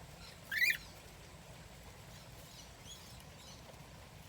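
A bird gives one short, loud, bright call about half a second in, followed by a few faint high chirps.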